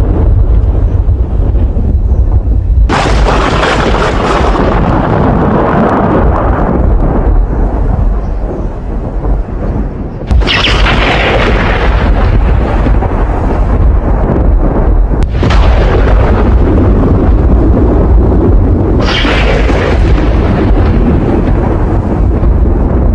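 Thunderstorm: a loud, continuous low rumble, with sudden surges of harsher hiss starting about three seconds in and again at about ten, fifteen and nineteen seconds, each lasting a few seconds.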